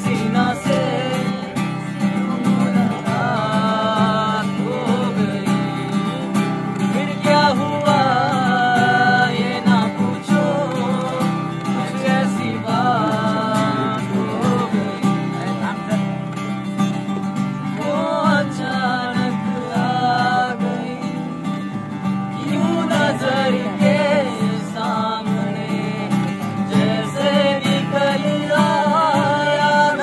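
Acoustic guitar strummed steadily, with a voice singing a melody over it in phrases of a few seconds each.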